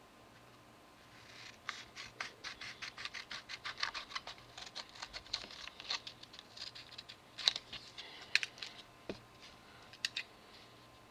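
Scissors cutting out a small paper transfer template: a quick run of snips, about six a second, then a few louder separate snips near the end.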